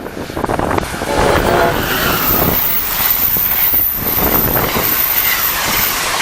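Passenger train passing on electrified main line: a loud, steady rush of wheel and rail noise that builds about a second in.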